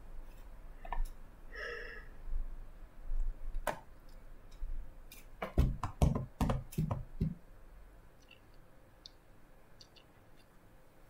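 Scattered computer mouse clicks at a desk, with a quick run of heavier knocks about six seconds in.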